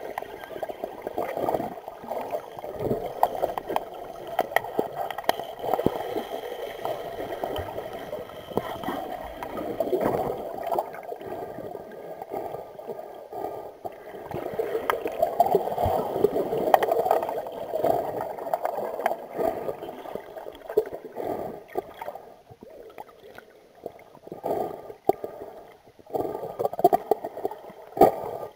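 Muffled underwater sound of an underwater hockey game, heard through a camera submerged on the pool floor: water churning and gurgling, with scattered clicks and knocks from sticks and the puck.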